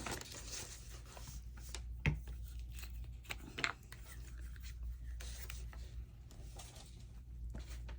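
Paper rustling and being handled, with a few light taps and clicks on the tabletop.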